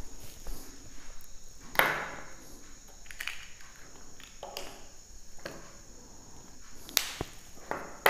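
Room tone with a faint steady high whine and a handful of light knocks and clicks spaced a second or two apart, the sharpest near the end.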